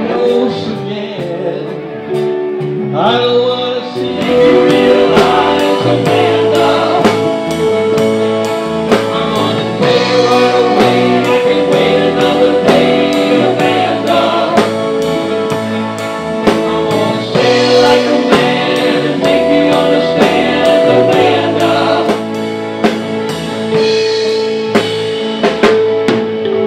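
A band playing a song: singing and held chords over a drum kit keeping a steady beat.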